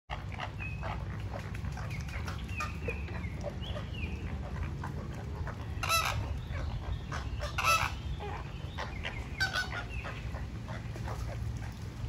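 A flock of flamingos calling: a constant run of short calls from many birds, with two louder calls about six and seven and a half seconds in, over a steady low hum.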